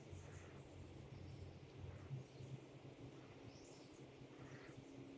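Near silence: faint outdoor ambience with faint, scattered high-pitched chirps.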